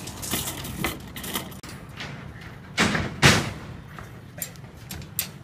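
Irregular knocks and clanks of construction work, with two loud bangs about three seconds in.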